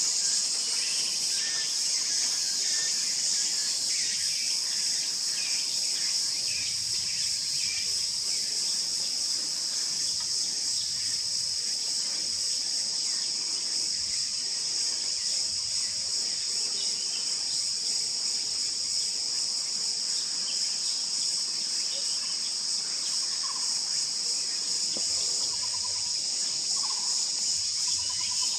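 A steady, high-pitched chorus of insects, unbroken throughout, with a few faint, short bird notes at a much lower pitch near the end.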